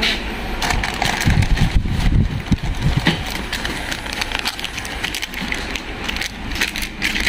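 Plastic shampoo and conditioner sachets crinkling and rustling as they are picked through by hand: a run of short crackles over a steady background hiss.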